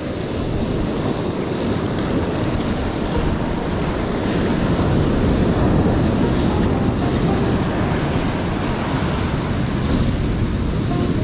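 Ocean surf rushing and washing onto the shore, swelling louder over the first few seconds, with wind buffeting the microphone.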